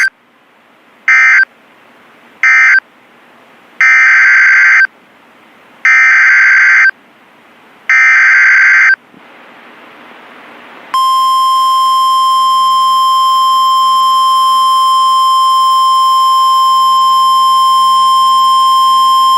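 EAS/SAME data tones from NOAA Weather Radio. Two short bursts of warbling data close one message, then three one-second header bursts open the next alert. About eleven seconds in, the steady 1050 Hz weather-radio alert tone starts and holds.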